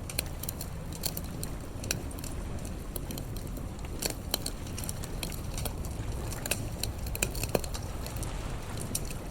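Wood fire crackling, with irregular sharp pops and snaps scattered through, over a steady low rumble.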